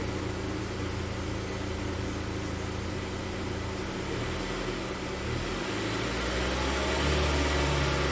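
Honda Civic running with a steady low engine and road hum, which shifts and grows louder about six seconds in.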